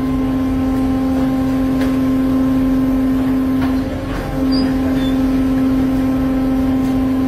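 Fishing boat's machinery running with a loud, steady low hum with overtones, while the winch hoists a large swordfish. The hum dips briefly about four seconds in.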